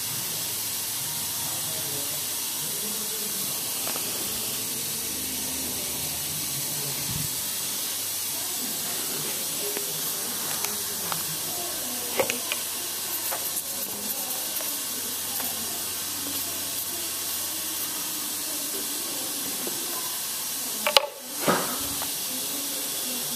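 Steady hiss of pressurised gas escaping from a leaking stainless-steel-to-copper pipe joint on a refrigeration system under pressure test. A few light clicks come midway, and a sharper knock near the end.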